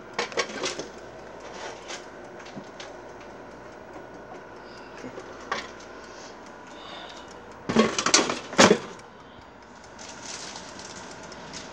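Air fryer basket clattering as it is slid back into the air fryer and knocks into place, a burst of sharp hard-plastic knocks lasting about a second, near the end. Before it come a few light knocks of the basket being handled.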